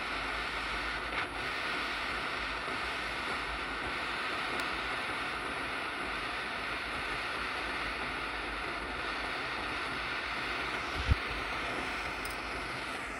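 Gas torch flame burning with a steady hiss while heating a stainless steel joint for silver soldering. A brief low knock sounds about eleven seconds in.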